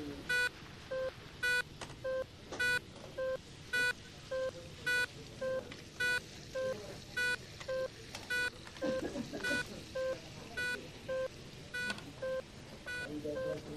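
Hospital equipment giving a steady, repeating electronic beep: a sharp, high beep about once a second, with a softer, lower beep between each pair. Faint voices murmur in the background.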